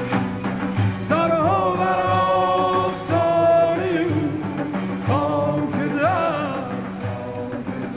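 Ensemble of Kurdish tanburs strumming a steady rhythmic accompaniment. Over it, a male voice sings two ornamented, sliding phrases in Persian Sufi style. The first, from about a second in, ends on a held note; the second begins about five seconds in.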